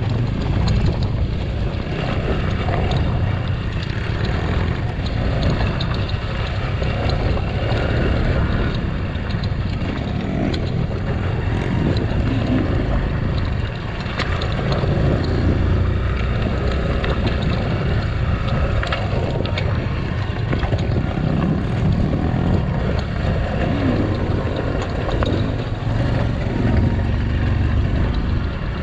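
Off-road enduro dirt bike engine running steadily while being ridden.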